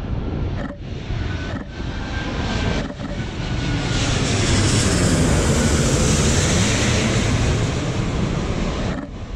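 Jet airliner passing low overhead on approach: engine noise swelling to a loud, steady rush about four seconds in, then easing off. Sharp DSLR shutter clicks sound three times in the first three seconds and once more near the end.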